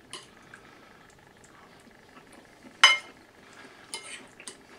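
Cutlery clinking against a plate during eating: a few light ticks, and one sharp, ringing clink about three seconds in.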